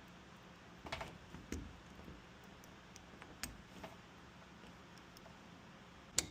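Scattered light metallic clicks and ticks of lock-picking tools working in a door lock, with a sharper, louder click near the end.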